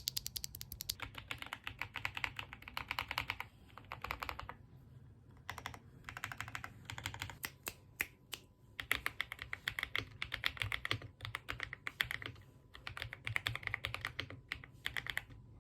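Typing on a Yunzii AZ98 mechanical keyboard fitted with Yunzii Cocoa Cream switches. Rapid runs of keystrokes come in several bursts, broken by brief pauses.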